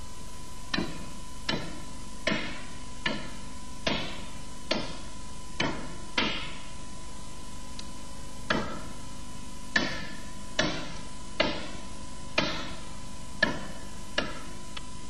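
A flat metal meat pounder, wetted with water, slapping down again and again on a beef tenderloin steak to flatten it, about one blow a second, some fifteen blows in all.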